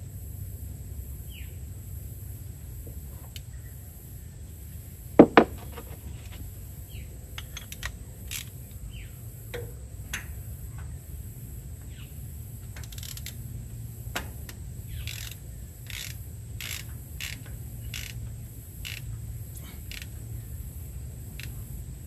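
A sharp metallic clank about five seconds in, then a run of light metal clicks and taps from hand tools working on the tractor's underside. Insects trill steadily through it and a few birds chirp briefly.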